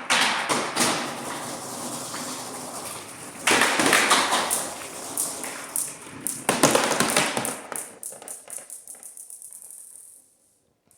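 Clattering of small hard objects in three loud bursts, each rattling on and fading, ending in a run of light clicks that come faster and faster before stopping.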